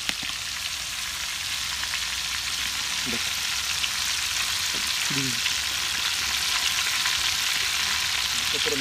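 Squid heads deep-frying in a large pot of hot oil: a steady sizzle dotted with sharp crackles and pops of spattering oil, growing slightly louder.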